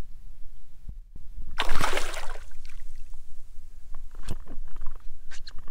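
Released redfish splashing as it kicks free of the hand and bolts off through the shallow water: one short splash about a second and a half in, followed by a few light knocks.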